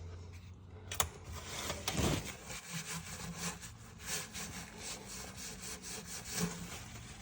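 A sharp click, then rapid, uneven rubbing or scraping strokes for several seconds, as of hand work on engine parts.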